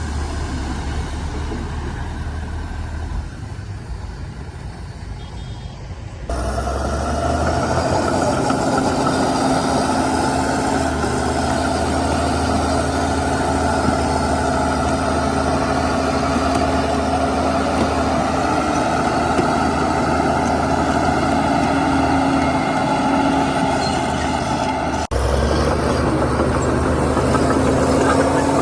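Heavy diesel engines of earthmoving machines running steadily, the sound jumping louder about six seconds in and shifting abruptly again near the end.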